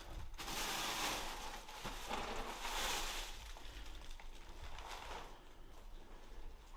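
Rustling noise, loudest in the first three seconds and then fading.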